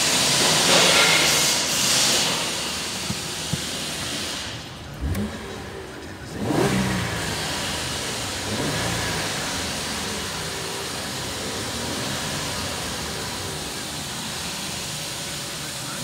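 Holden Commodore 3.6-litre V6 engine catching about five seconds in after a hiss and a couple of clicks. It is revved up to around 3,000 rpm and back a couple of times, then settles to a steady idle.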